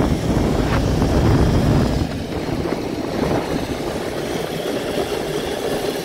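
Open metal cable car travelling along its steel cable: a steady low rumble mixed with wind on the microphone. The rumble is heaviest for the first two seconds, then eases to a lighter, steady noise.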